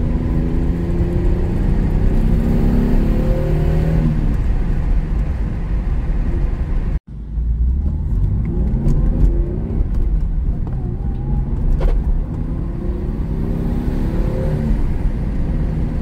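Lexus SC300's 2JZ straight-six engine pulling hard through the gears, heard from inside the cabin over low road rumble. The engine note rises in pitch for about four seconds and falls at a gear change, then climbs again twice later on.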